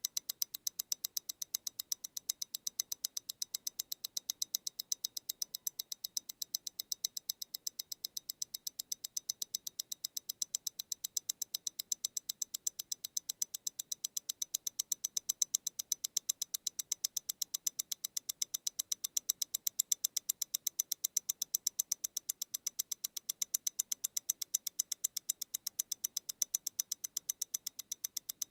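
MEMORIGIN Stellar tourbillon wristwatch ticking, close up: a rapid, even train of sharp, high ticks at 28,800 beats per hour, about eight a second, from its balance and escapement.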